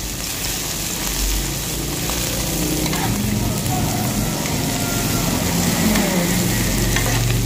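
Sliced chilies, shallots and garlic sizzling steadily in hot oil in a wok, stirred and tossed with a metal spatula that scrapes the pan; the aromatics are being sautéed until wilted.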